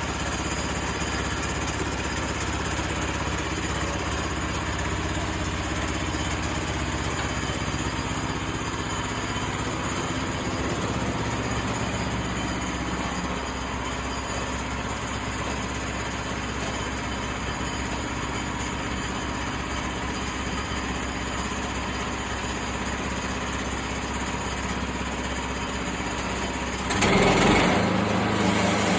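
Sawmill engine running steadily. About two seconds before the end it gets suddenly louder and noisier as the blade starts cutting into the white oak log.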